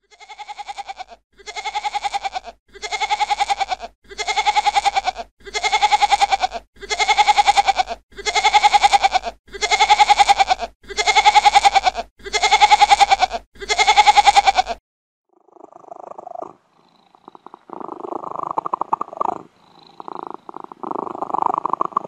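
An animal calling about ten times in a steady rhythm, each call a pulsing cry a little over a second long, followed in the last several seconds by a lower, rough, stuttering rumble.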